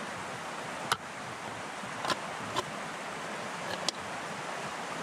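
Steady rush of a nearby mountain stream, with four sharp clinks of metal camp cookware being handled and nested, about one, two, two and a half and four seconds in.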